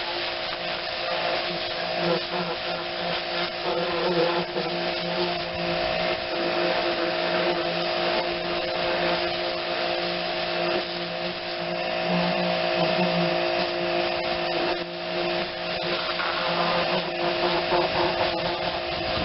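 Small pressure washer running steadily: its motor and pump hum at a constant pitch under the hiss of the water spray.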